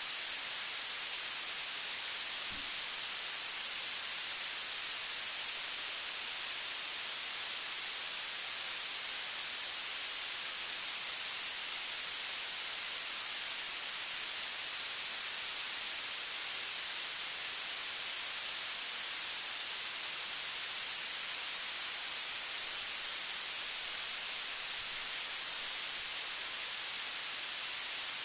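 Steady high hiss of recording noise, flat and unchanging, with a faint low thump about two and a half seconds in.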